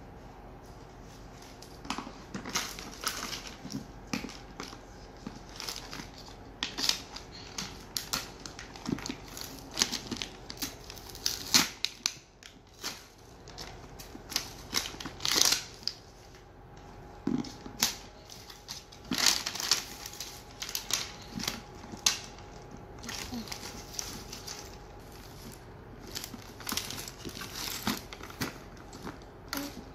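Paper wrapping being torn and peeled off a plastic toy ball by hand, with irregular crinkling, tearing and sharp plastic clicks and knocks.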